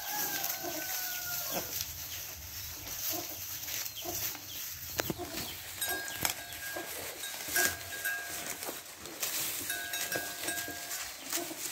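Cattle eating fresh green fodder at a feed trough: crunching, tearing and rustling of grass stalks, with soft chewing thuds. A faint, steady, high tone sounds three times in the background, near the start, about six seconds in and about ten seconds in.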